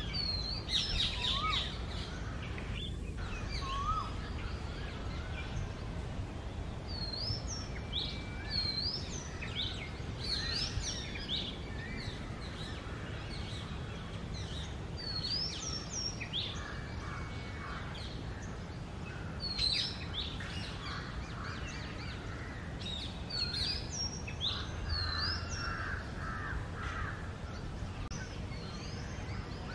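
Oriental magpie-robin singing: a varied run of clear whistled notes, many of them sharp upward-hooked whistles, with short phrases repeated throughout. A steady low background rumble runs beneath the song.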